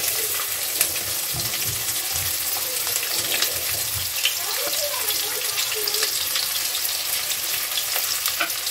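Chopped onions and curry leaves sizzling in hot oil with fennel seeds: a steady frying hiss with scattered small crackles and pops.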